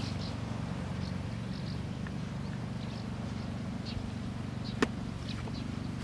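A steady low hum throughout, with light ticks and one sharp click about five seconds in as a plastic laptop is closed and turned over by hand.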